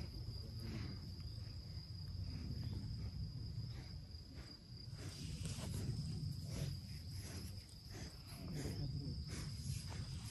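Crickets trilling steadily in the grass, a thin unbroken high tone, with soft rustling and handling noise from about halfway through.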